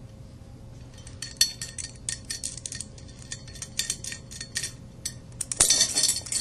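Metal spokes clinking and ticking against each other, the hub and the rim as they are handled and fitted while lacing a motorcycle wheel. Light scattered clicks begin about a second in and become a busier, louder run of clinks near the end, over a faint steady hum.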